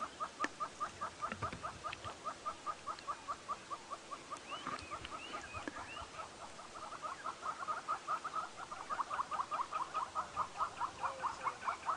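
A small animal calling in a steady, rapid series of short pitched notes, about four a second, a little faster and louder near the end, with a few faint higher chirps about halfway through.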